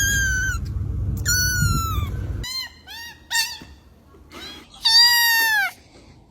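Cat meowing repeatedly in high, falling-pitched meows: a few short ones in the middle and a longer, louder one near the end. A low rumble sits under the first couple of seconds and then stops abruptly.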